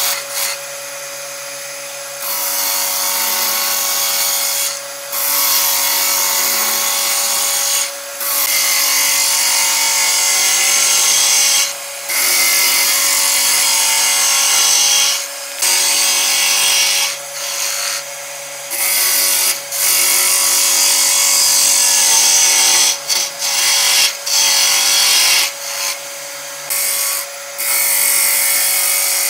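Homemade wood lathe's motor running with a steady hum, while a tool is pressed against the spinning wood in repeated passes of a few seconds each, making a loud scraping hiss that stops briefly between passes.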